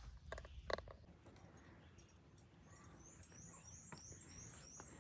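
Near silence, with a faint run of high, thin chirps repeating about three times a second from about halfway in.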